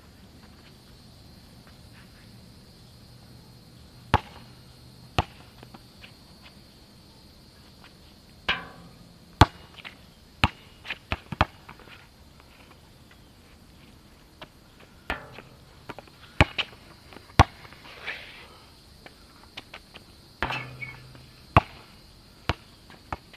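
Basketball play: a series of sharp, irregular thuds and bangs as the ball bounces on the asphalt court and hits the hoop, some followed by a short ring. A steady high insect chirr runs underneath.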